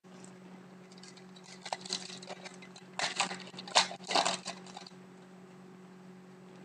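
Crinkling and rustling of a foil trading-card pack and its cards being handled, in irregular clusters from about a second in, loudest between about three and four and a half seconds, then stopping. A faint steady electrical hum runs underneath.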